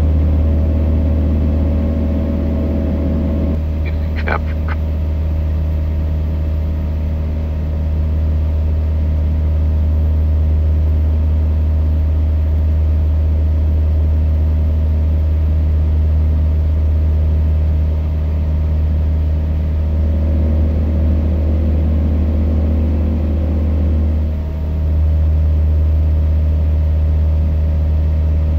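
Aquila single-engine light aircraft's piston engine and propeller droning steadily, heard inside the cockpit at climb power after takeoff. A brief high blip sounds about four seconds in.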